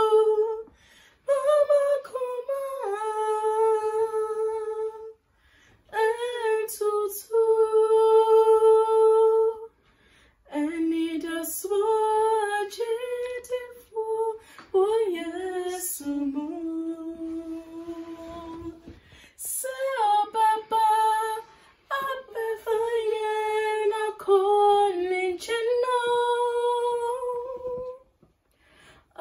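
A young woman singing a cappella, with no instruments: sung phrases of a few seconds with long held notes, broken by short pauses for breath.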